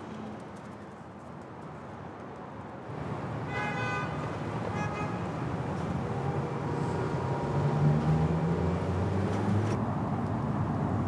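City street traffic noise that swells about three seconds in, with a horn tooting twice briefly. A vehicle's low rumble grows loudest near the middle.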